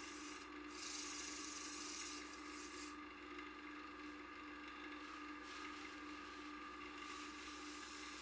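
Wood lathe running with a steady hum while sandpaper is held against the spinning turned box, giving a hissing rub for about a second and a half near the start. A second, fainter rub comes in past the middle.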